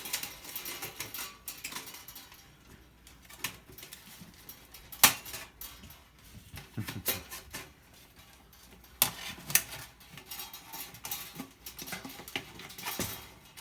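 Irregular clicks and light metallic clinks of hand tools on the sheet-metal parts and springs of a Black and Decker toaster oven being taken apart, with one sharper clank about five seconds in.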